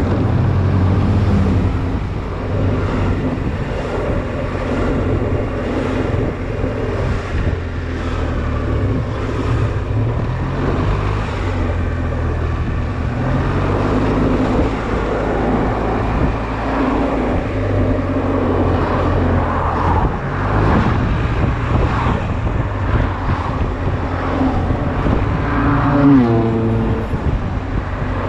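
Honda Silver Wing scooter's engine running while under way, its note shifting up and down with the throttle, over steady wind and road noise; a brief rising whine comes near the end.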